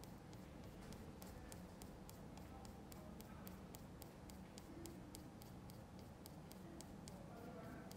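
Faint, fast, evenly spaced ticking, several ticks a second, over a low steady hum.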